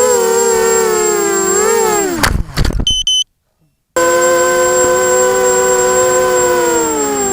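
Brushless motors of a ZMR250 racing quadcopter whining with throttle changes; the pitch dives about two seconds in as the throttle is cut. The sound stops abruptly for a moment, then the whine comes back steady and sinks slowly near the end.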